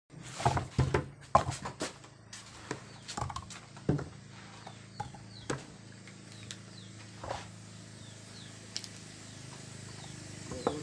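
A quick run of knocks and clatters in the first few seconds, thinning to scattered clicks, with short falling bird chirps and a low steady hum in the background.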